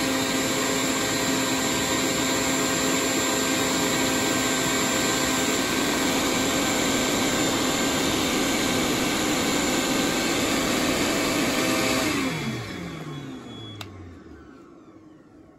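Shop vac and heat gun on high running together from a battery-fed inverter, a steady loud whir with a few steady tones. About twelve seconds in the power cuts out as the battery's BMS shuts it off under a load of over 380 amps, and the motors spin down with falling pitch over a few seconds.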